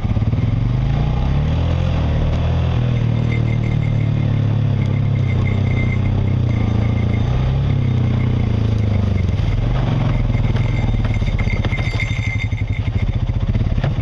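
Off-road vehicle's engine running at low revs, rising and falling slightly in pitch, as it creeps down a rough dirt trail.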